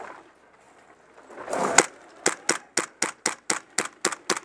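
Airsoft gun firing a rapid string of single shots, sharp snapping clicks at about four to five a second, starting about halfway in, after a brief rustle of movement.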